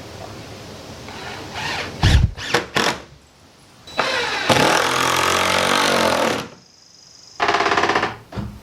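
Power drill driving a screw to hang a door: a few knocks, then the drill motor runs for about two seconds with its pitch shifting under load, and runs again briefly near the end.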